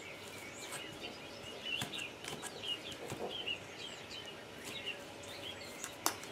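Fork mashing boiled potatoes in a stainless steel bowl: the tines tap and scrape the steel with short squeaks, quietly, with a sharper clink about six seconds in.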